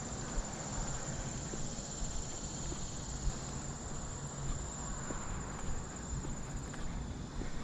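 Steady high-pitched trill of insects in summer vegetation, over a low rumble of wind on the microphone of a camera carried while walking.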